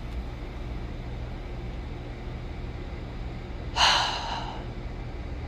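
A single short breathy exhale close to the microphone, about four seconds in, over a steady low hum.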